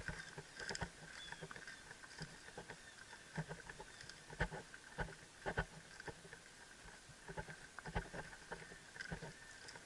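Irregular knocks and rattles of a heavy helmet-mounted camera jostling on a rider's helmet as a horse walks over a stubble field, with soft steps and rustling in between.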